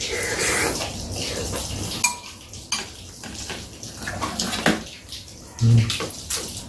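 Chopsticks and spoons clicking and scraping against bowls and a metal tray as two people eat, over a steady hiss. A dull thump sounds about two thirds of the way in, the loudest moment.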